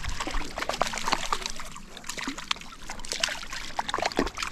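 A small hooked fish splashing at the water's surface on a fly line, a run of quick, irregular little splashes.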